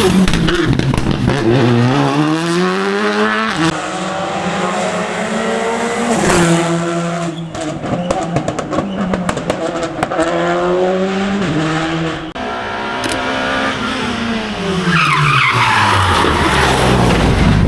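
Rally car engine at full throttle, its pitch climbing and dropping several times through quick gear changes. A run of sharp cracks comes around the middle, and tyre squeal near the end as the engine note falls away.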